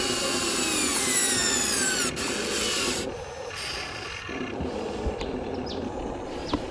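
A small electric RC motor whining, its pitch falling slowly over the first two seconds, over rough scraping and grinding. After that the scraping goes on more quietly with a few light clicks.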